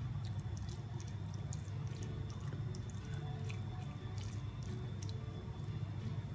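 Wooden spoon spreading and evening out a moist onion, fava bean and lentil filling in a round pan, with faint scattered clicks, over quiet background music.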